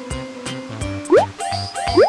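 Background music with a steady beat and two quick rising slides.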